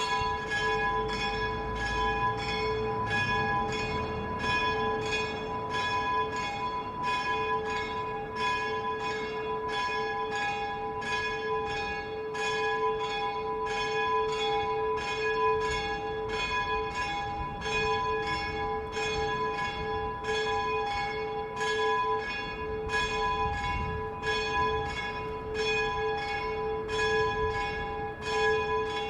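Church bell ringing in a fast, even rhythm, about one and a half strikes a second, each strike ringing on into the next at the same pitch. It starts suddenly.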